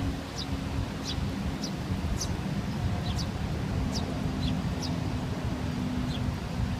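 Bird calls: short, high, falling chirps repeated about one and a half times a second, over a steady low rumble and a faint steady low hum.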